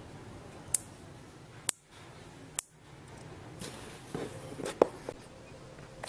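Handling noise from a small hand-wired circuit of relays, capacitors and wires being held and moved on a workbench: a few sharp clicks and soft rustling.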